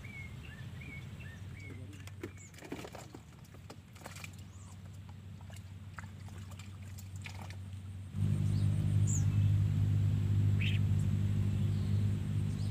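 A few short bird chirps and small knocks over quiet open-air background, then about eight seconds in a steady low engine hum starts abruptly and keeps running, becoming the loudest sound.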